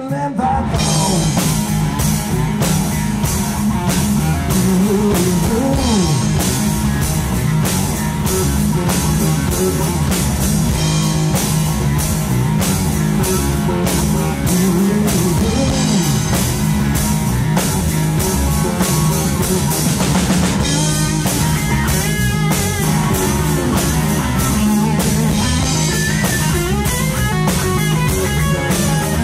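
Live rock band playing an instrumental passage: a Stratocaster-style electric guitar over a drum kit, loud and steady, with the guitar's notes bending up and down.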